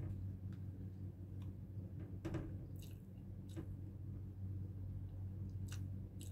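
A person eating: chewing, with about half a dozen short clicks and smacks from the food and dish, over a steady low hum.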